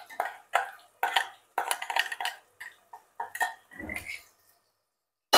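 A spoon scraping and knocking thick onion-tomato paste out of a stainless-steel mixer-grinder jar into hot oil in an aluminium pot, in short irregular strokes with wet plops, ending in one sharp ringing metallic clink.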